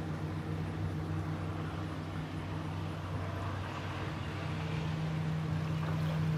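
Motorboat engine running steadily, a low drone that grows a little louder over the last couple of seconds.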